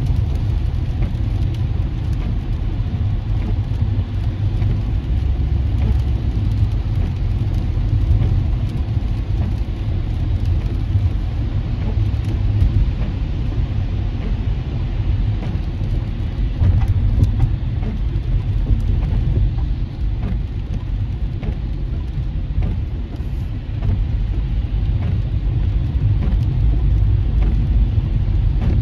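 Steady low rumble of road noise inside a car driving on a rain-soaked freeway, with rain hitting the car.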